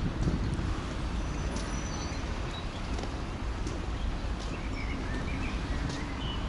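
Steady low rumble of wind buffeting the microphone, with a few faint bird chirps around the middle.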